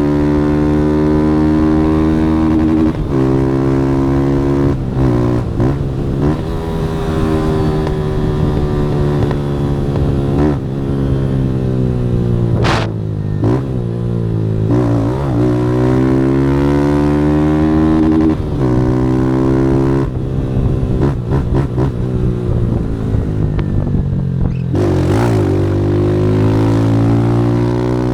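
Motorcycle engine through a Fortuna Trioval aftermarket exhaust, ridden hard: the engine note climbs with the revs and drops back several times, with steadier cruising stretches in between.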